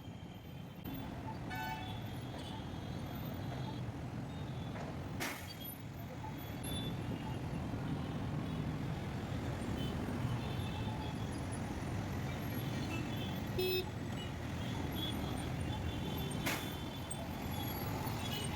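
City road traffic running steadily, with a few short vehicle horn toots and two sharp clicks, about five seconds and sixteen seconds in.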